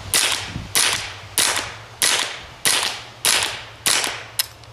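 Rifle fired eight times in quick succession, about two-thirds of a second apart, through a 3D-printed PLA sound suppressor with Gemtech subsonic ammunition. Each shot is a quiet, sharp pop with a short fading tail and no supersonic crack.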